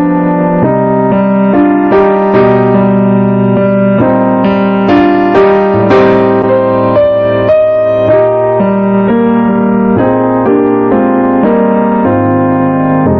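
Piano-sounding keyboard playing a slow instrumental piece, chords held under a melody line.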